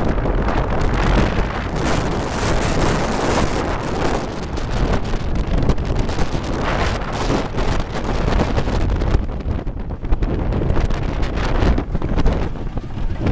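Wooden roller coaster train running at speed along its wooden track, heard from on board: a continuous rumble with rapid clattering, mixed with heavy wind buffeting the microphone.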